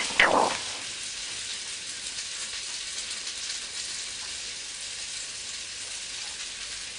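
A brief loud rustle of a hand and bedding just after the start, sweeping downward, then a steady faint hiss.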